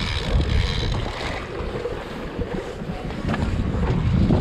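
Wind buffeting the microphone as a low rumble, with sea water sloshing against the boat's hull.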